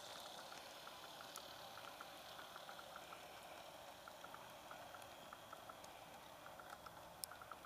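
Faint clicking of G-scale model train wheels over rail joints, in quick pairs and small groups, as boxcars roll past behind a model diesel, over a steady soft hiss. One sharper click near the end.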